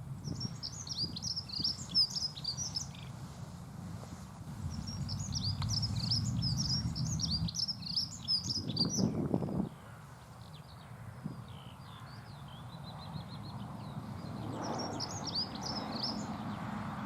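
Dunnock singing: short, fast, high-pitched warbling phrases, each two to three seconds long, repeated about four times with pauses between. A steady low rumble runs underneath, with a louder low burst just before the middle.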